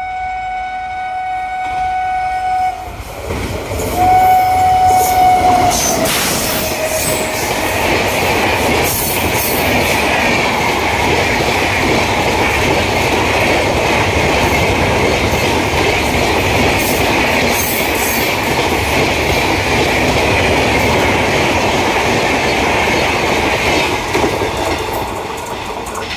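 WAP-7 electric locomotive sounding its horn in long blasts as it approaches, two long and a shorter one after. Then its train of ICF coaches runs past at high speed, a loud steady rumble with wheels knocking over the rail joints.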